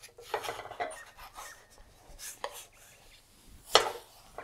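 Wooden spatula scraping and tapping against a stainless-steel frying pan while turning and lifting a flatbread, with one sharper knock about three and a half seconds in.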